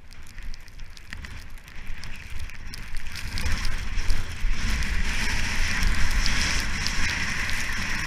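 Skis sliding and scraping over snow, a crackly hiss with many small clicks over a low rumble of wind on the GoPro's microphone. It grows louder as speed builds over the first few seconds, then stays steady.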